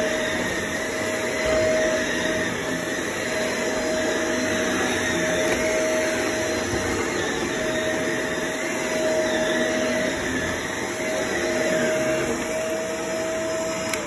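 Upright vacuum cleaner running steadily on carpet: a constant high motor whine over the rush of air.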